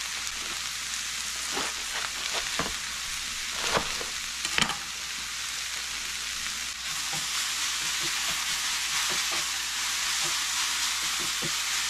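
Swiss chard and garlic frying in oil in a pan, a steady sizzle, with a few knocks and taps between about two and five seconds in.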